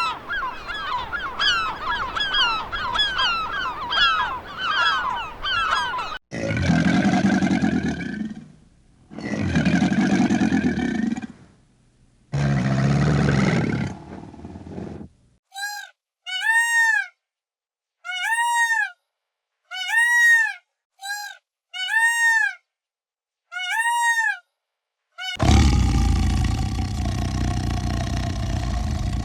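A string of different animal calls cut one after another. First comes rapid high chirping for about six seconds. Then three long low calls, then about nine short separate calls that rise and fall in pitch like honks, and from near the end a loud, rough, roar-like call.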